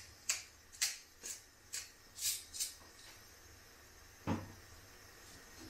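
Hand pepper mill grinding peppercorns, about six short crunchy twists roughly two a second that stop a little before halfway, then a single thump about four seconds in.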